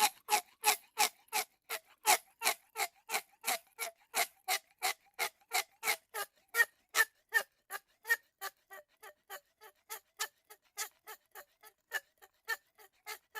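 Drinking straw squeaking in a quick, even series of short squeaks, about three a second, a little softer in the second half.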